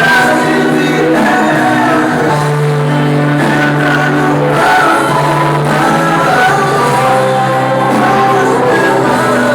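Music with singing: a vocal melody over sustained held notes.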